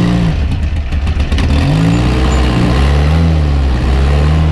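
Rock-crawling buggy's engine revving in repeated surges that rise and fall in pitch as it climbs under throttle with the rear locked and wheels spinning, with a run of sharp knocks in the first second or so.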